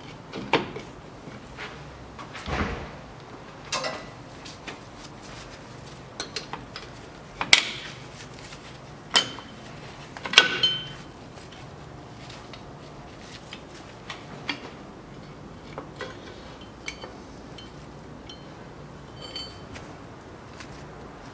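Rear drum brake shoes, return springs and hold-down parts being worked off a steel backing plate by hand and tool: irregular metallic clicks and clinks, with a few sharper clanks that ring briefly around the middle and lighter ticks later on.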